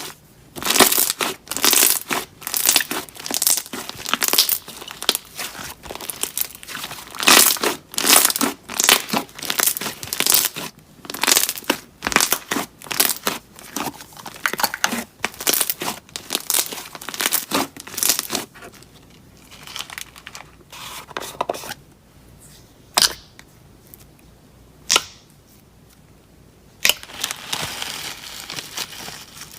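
Slime worked by hand, squeezed and pressed so that it crackles and pops in a quick, dense run. After about 18 seconds this thins to a few single pops.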